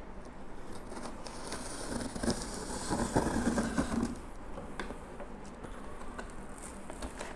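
An open scissor blade dragged along packing tape on a cardboard box, a scratchy rasp that runs for about three and a half seconds and is loudest near the end of the cut. Then the cardboard flaps are pulled open with light clicks and rustles.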